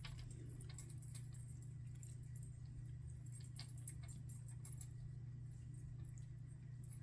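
Faint, scattered light clicks and metallic jingling over a steady low hum.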